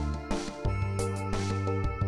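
Background music with sustained bass and chords under repeated percussion hits; the bass line shifts about half a second in.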